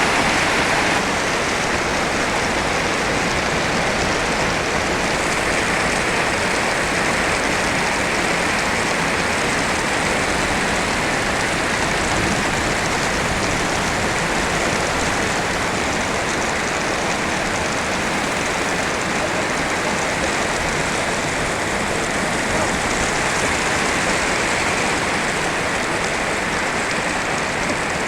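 Heavy rain falling steadily, a dense even rush of water noise.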